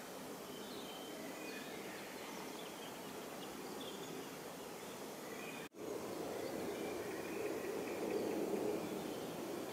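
Outdoor evening ambience: a steady background hiss with faint, brief bird chirps. A little over halfway through, the sound cuts out abruptly and comes back louder, now with a steady low rumble.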